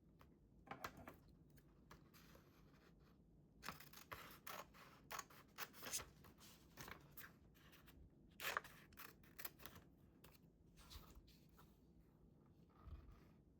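Scissors cutting paper: a run of quiet, short snips and paper rustles in irregular clusters, with the sharpest ones about two thirds of the way in.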